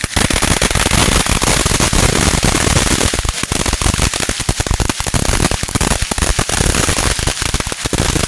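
Consumer fireworks going off in a loud, dense barrage of rapid crackling pops and bangs that starts suddenly and does not let up.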